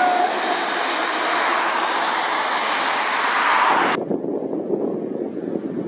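Mercedes-Benz eight-wheel tipper lorry passing close on a wet road, its engine note dropping in pitch as it goes by, under a loud hiss of tyres on wet tarmac. About four seconds in, the sound cuts abruptly to a duller, quieter rumble of a distant lorry, with wind on the microphone.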